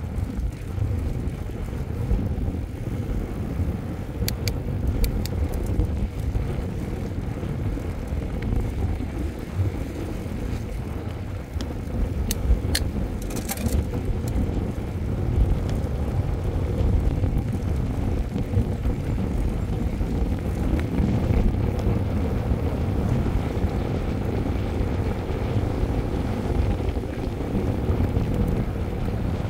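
Mountain bike riding along an asphalt road: wind buffeting the handlebar-mounted microphone over the rolling of knobby tyres, a steady low rumble. A few brief ticks come around five and thirteen seconds in.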